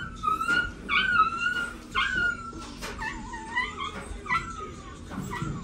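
An eight-week-old Rottweiler puppy whining: a string of short, high-pitched cries that rise and fall in pitch, one after another.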